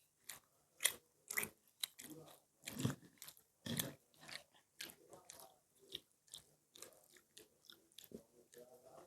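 A person eating close to the microphone: chewing with wet mouth clicks and crisp crunchy bites, the two heaviest crunches about three and four seconds in.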